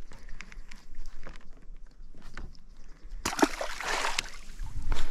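Water sloshing and splashing around a small fishing boat, with light clicks and knocks from the fishing gear. About three seconds in a noisy rush lasts about a second, and a louder low thump comes near the end.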